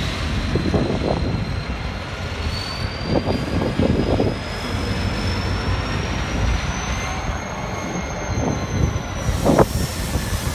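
Freight train of container wagons, hauled by 81 class diesel locomotive 8102, rolling past with a steady rumble. Over it runs a thin, high wheel squeal that slowly climbs in pitch and drops back near the end.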